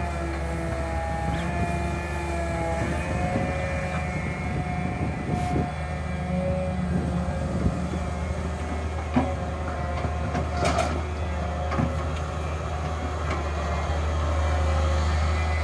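Daewoo 130W-V wheeled excavator's diesel engine running steadily, with a hydraulic whine that steps up and down in pitch as the bucket digs, swings and lifts soil. There are a few sharp knocks, and the sound grows slightly louder near the end as the load goes over the truck.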